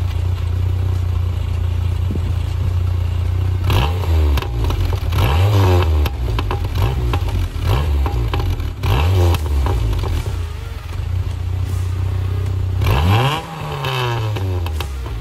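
Small hatchback's engine idling through its single tailpipe exhaust and blipped up several times, the pitch rising and falling with each rev, the last rev near the end the biggest.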